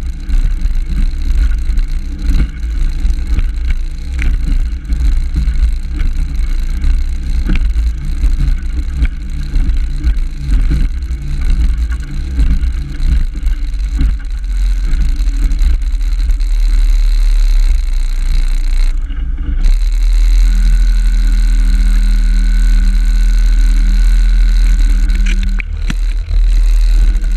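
35 hp Evinrude outboard running at speed, mixed with heavy wind buffeting on the microphone and the hull knocking through the chop. About two-thirds of the way in, the sound steadies into an even engine note.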